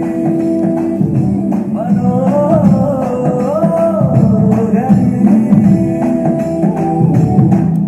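A song with a singing voice, played from the USB player through an LA4440-chip stereo amplifier during an audio test, loud with strong bass.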